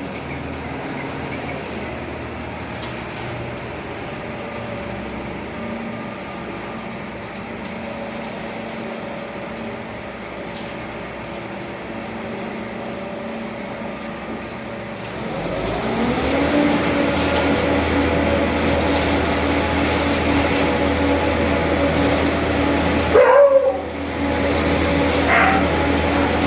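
A construction machine's engine runs steadily, then revs up, louder and higher in pitch, about two-thirds of the way in and holds there. Two short sharp cries sound near the end.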